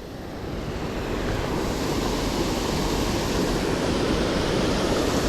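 Steady rushing of a creek waterfall, fading up over the first two seconds and then holding even.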